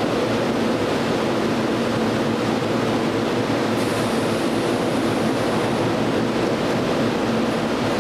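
Kintetsu 7020-series train standing at a subway platform, giving a steady low hum as its onboard equipment runs while it waits. A faint high whine joins in about four seconds in for a couple of seconds.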